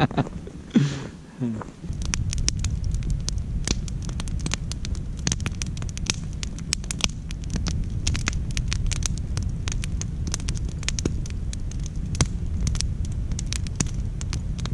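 Wood campfire burning: frequent sharp crackles and pops over a steady low rush, starting about two seconds in after a man's short laugh.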